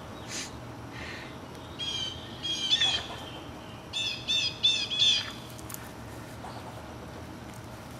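Squirrel chattering a scolding alarm call: a few harsh calls about two seconds in, then a quick run of four calls about four to five seconds in.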